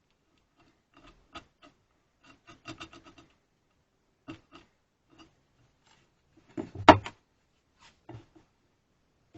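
Hand work on a Record bar clamp: short, irregular scrapes and light knocks, with one louder clack about seven seconds in.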